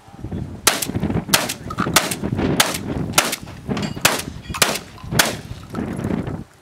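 Shotgun fired in a rapid string of about eight shots, a little over half a second apart, stopping about five seconds in.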